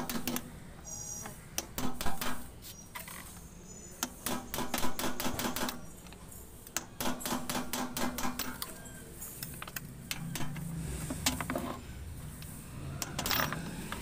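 Hammer driving a chisel against the seized aluminium hub at the bottom of a top-load washing machine's inner drum: quick runs of sharp metallic taps with short pauses between them. The hub, stuck fast with corrosion, is being broken off so the inner drum can be lifted out.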